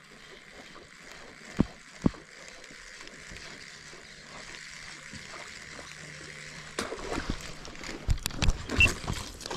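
Handling noise from fishing gear: two sharp knocks about a second and a half and two seconds in, then a run of clicks and rustles in the last few seconds, close to the microphone.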